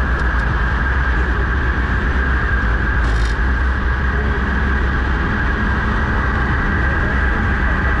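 Steady, loud rumbling noise of a chair lift ride, deepest at the low end, with a brief rattle about three seconds in.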